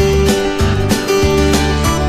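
Background music: country-style guitar music with a steady beat.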